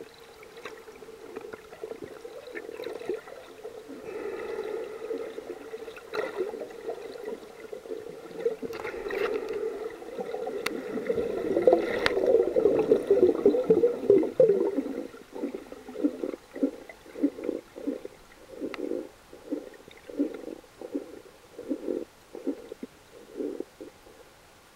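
Muffled underwater water noise picked up by a snorkeler's submerged camera as he swims: a churning rumble that builds to its loudest just past the middle, then breaks into a quick run of muffled pulses, about two a second.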